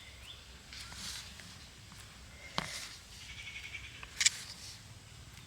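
Faint soft brushing and rubbing sounds of hands working pizza dough on a plate, three short ones with a sharp click in the middle and the loudest near the end, over faint bird chirps.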